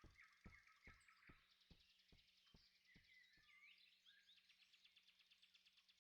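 Very faint outdoor ambience: scattered bird chirps with a fast, high trill, and soft ticks about twice a second that fade out partway through.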